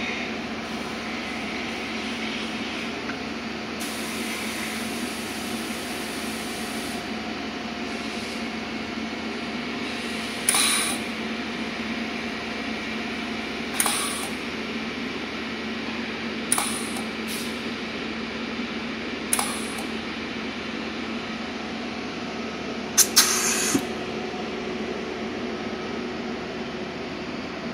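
Argon spot welding machine firing a series of short welds: about six brief hissing bursts a few seconds apart over a steady machine hum, the last a longer double burst near the end.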